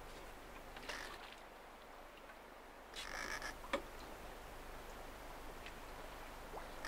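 Faint steady wash of water and air along a small sailing yacht under way in calm conditions, with a short rasping sound about three seconds in, followed by a click.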